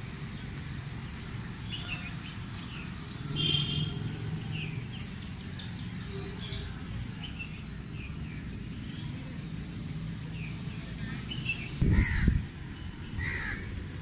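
Crows cawing, among the short chirps of smaller birds, over a low steady rumble, with two louder bursts near the end.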